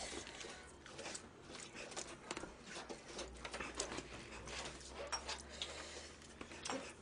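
Faint, scattered small clicks and rustles in a quiet room, with no clear single source.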